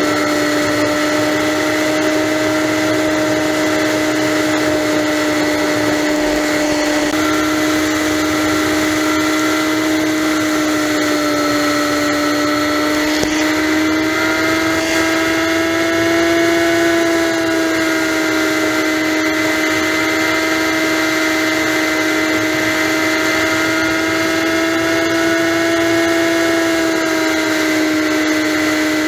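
Honda Magna V4 motorcycle engine droning at steady highway cruise, a constant whine over wind rush, its pitch rising slightly about halfway through and again near the end as the revs creep up.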